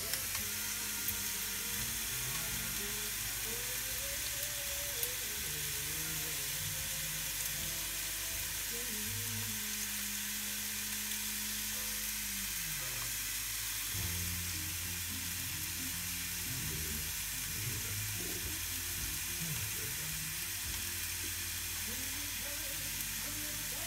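Ribeye steak sizzling steadily between the hot plates of a closed Tefal Optigrill XL contact grill.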